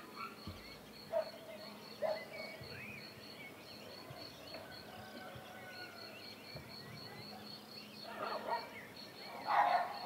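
Rural outdoor ambience: birds chirping over a faint high chirp that repeats about three to four times a second. A louder burst of sound comes near the end.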